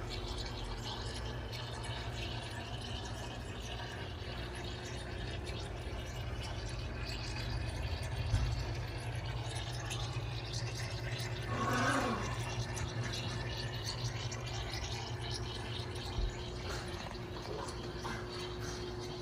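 Steady trickle of running water with a low hum underneath, typical of a vivarium's pump-fed water feature.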